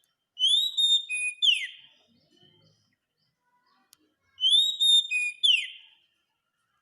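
Oriental magpie-robin (kacer) singing a clear whistled phrase: a rising note, a held tone, then a quick falling sweep. It sings the same phrase twice, about four seconds apart.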